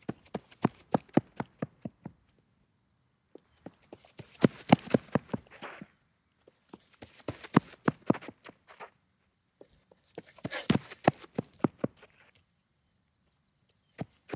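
Running footsteps passing by and turning back, about four passes: each run is a quick string of footfalls that grows louder and then fades away, with short pauses between runs.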